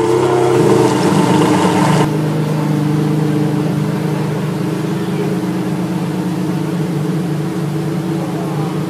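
Ferrari Enzo's V12 with FXX exhausts idling steadily. Crowd chatter over it stops abruptly about two seconds in, leaving only the even engine note.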